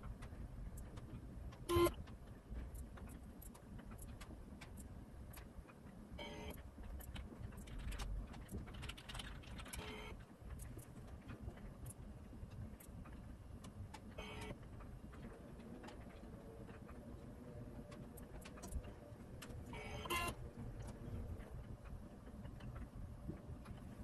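Faint low hum with scattered light clicks and a few brief mechanical whirs, about five in all, from the motorised AUTOMIC-3 watch positioning stand turning the watch between test positions.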